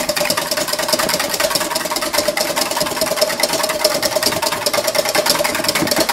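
Wire whisk beating a thin egg-yolk mixture in a stainless steel bowl. The wires scrape and tick against the metal in a rapid, even rattle, with a steady ringing tone underneath.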